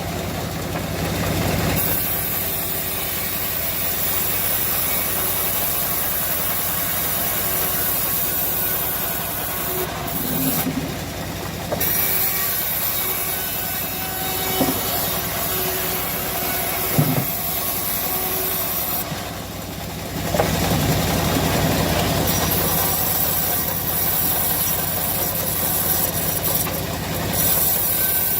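Engine-driven homemade bandsaw mill running steadily while its blade saws through teak wood. A high hiss over the engine drone drops out briefly twice, about ten and nineteen seconds in.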